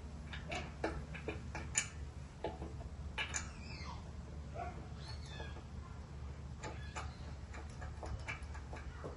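A run of light clicks and metallic taps, as of hand tools and small parts being handled during mower repair, with two short high squeaks that slide downward about three and five seconds in, over a steady low hum.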